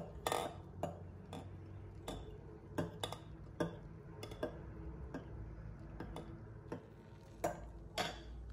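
Metal spoon stirring in a glass coffee mug, clinking against the glass in sharp, irregular taps roughly every half second to second, with two louder clinks near the end.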